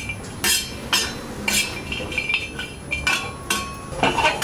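Steel spatula scraping and clinking on an iron tawa as dried coconut slices are stirred and dry-roasted, in repeated strokes about twice a second.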